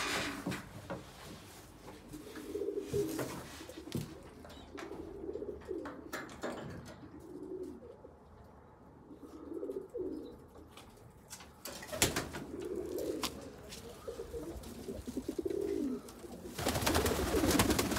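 Domestic pigeons cooing over and over, low coos every second or two. Near the end a loud noise covers them for a second or so.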